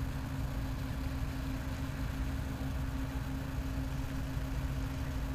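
The cargo ship Birch Glen passing close by: a steady low engine rumble with a constant hum.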